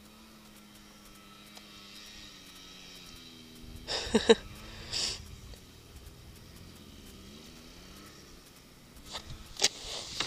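Dirt bike engines revving some way off, their pitch rising and falling, loudest about four seconds in. Near the end come several loud knocks as the rider takes hold of his own dirt bike.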